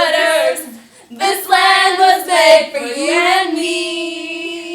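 A young girl singing unaccompanied, in short phrases, closing on one long held note.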